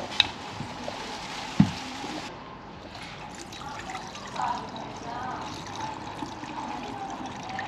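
Rakomelo trickling and pouring into a bottle, with two knocks in the first two seconds, the second a dull thump.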